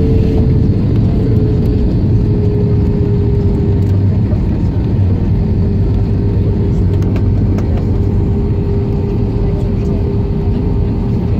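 Cabin noise of an easyJet Airbus A320-family jet rolling out on the runway after touchdown, ground spoilers up: a steady loud rumble with an engine tone that falls slowly as the aircraft slows.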